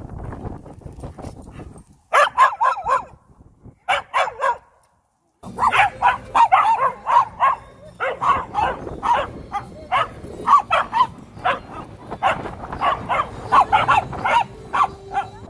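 Small Shih Tzu–Yorkie mix barking loudly in quick high-pitched yaps: a few short bunches in the first seconds, then an almost unbroken run of several barks a second.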